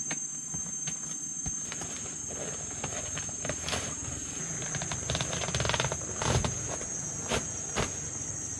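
Canvas rustling and several knocks as a roof-top tent is pulled open by someone standing on its ladder, busiest and loudest about five to six and a half seconds in, with two more knocks near the end. A steady high insect drone runs behind it.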